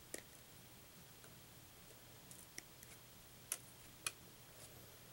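Near silence broken by about four short, sharp clicks and a few fainter ticks, from small plastic model-kit parts and sprues being handled.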